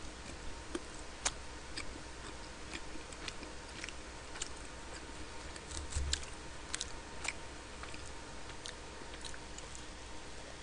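Close-miked eating sounds: scattered small clicks and taps of a fork against a plastic lunch tray, with quiet chewing, and a low thump about six seconds in.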